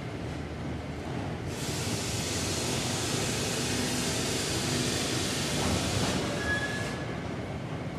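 Factory machinery in a melamine board lamination plant running with a steady low rumble, joined by a loud hiss that starts about a second and a half in and cuts off about a second before the end.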